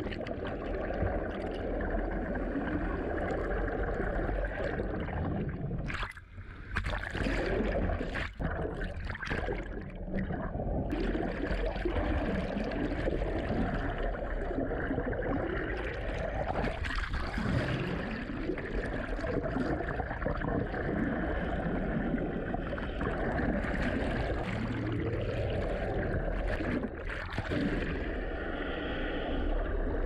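Muffled underwater rush and gurgle of moving water and bubbles heard through a submerged camera, with a continuous low drone that wavers in pitch.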